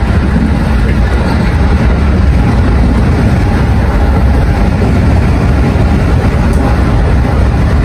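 Steady low rumble of a moving train, heard from inside the passenger carriage.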